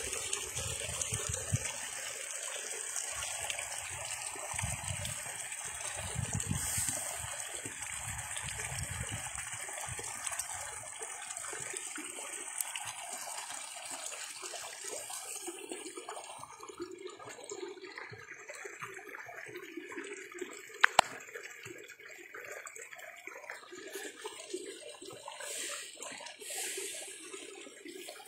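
Water running and trickling steadily through an oasis stream, with a high hiss that fades after about fifteen seconds. Low rumbles come and go in the first ten seconds, and a single sharp click is heard about three-quarters of the way through.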